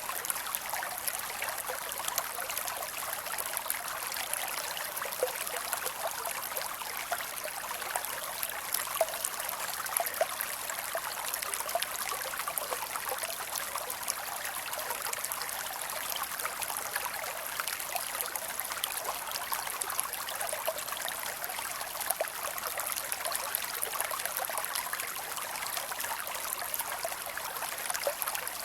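Creek water flowing and trickling over rocks, a steady splashing and babbling with small individual splashes throughout.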